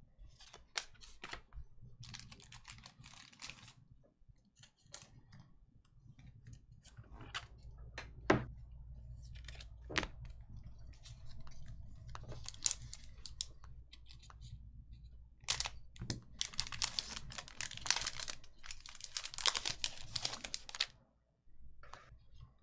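Hockey trading card packs being opened and handled: foil wrappers crinkling and tearing in several bursts, with scattered sharp clicks.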